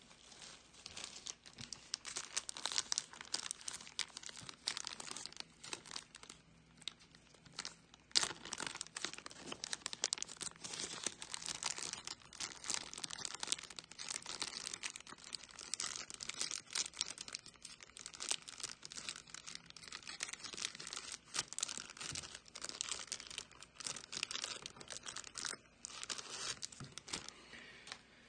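Plastic pack of Ultra Pro card sleeves crinkling and crackling as it is handled and opened, in a dense, irregular run of rustles with a sharper crackle about eight seconds in.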